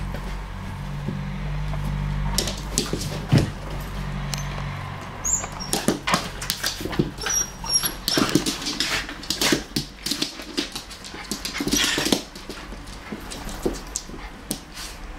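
Two dogs at play: short, irregular yips and whimpers with scuffling in a padded dog bed, busiest in the middle and dying down near the end.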